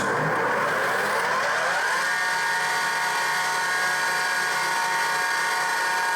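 Three-phase cutter head motor of a Yates American B244 planer, spinning the cutter head up to speed on its first run under power. Its whine rises in pitch over about the first two seconds, then holds steady as the motor runs at full speed. There is some running noise, which the owner puts down to old bearings.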